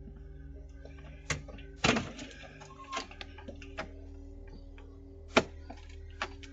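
A door being handled, heard through a doorbell camera's microphone: sharp latch and handle clicks and knocks, the loudest thud about two seconds in and another a little over five seconds in.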